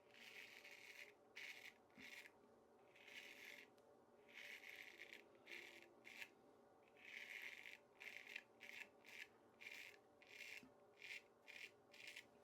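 Dubl Duck 6/8 round-point straight razor scraping through lathered stubble, a faint series of short crisp strokes. The strokes are longer at first and come shorter and quicker in the second half.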